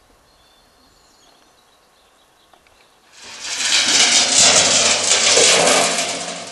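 Sudden loud rattling noise starting a little after halfway and lasting about three seconds, fading at the end: a noise device set off in a dog temperament test to check the dog's reaction to sudden sound.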